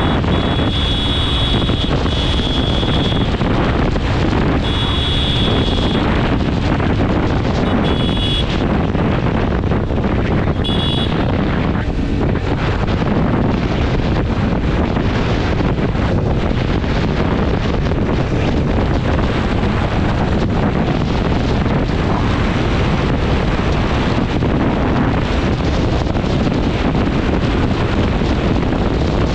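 Steady, loud wind rush on the action camera of a motorcycle riding at speed. A thin high-pitched tone comes and goes several times in the first dozen seconds.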